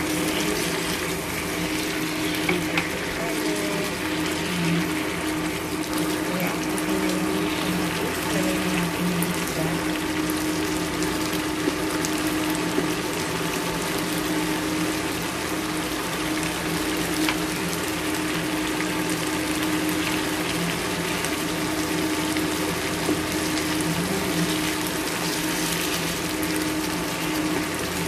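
Milkfish in tomato and black-bean sauce simmering and sizzling in a frying pan, a steady hiss with a low hum underneath and a spatula clicking against the pan now and then.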